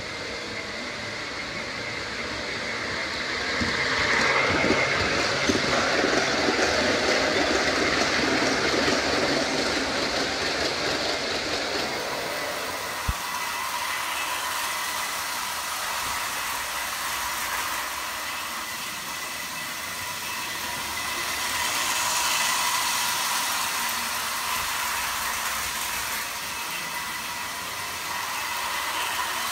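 O-scale model trains running on three-rail tubular track. First the MTH Baltimore & Ohio E8 diesels and passenger cars rattle and rumble along the track on a hard floor, growing louder as they pass close by. After a sharp click about 13 seconds in, a lighter, higher rolling clatter follows from a Lionel locomotive and tank cars on track laid over carpet, swelling once as the train comes near.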